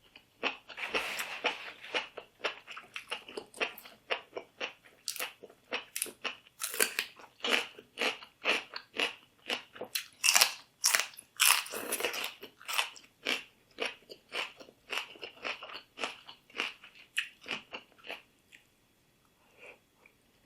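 A person chewing and biting food, a rapid, irregular run of short crunching mouth sounds that stops a couple of seconds before the end.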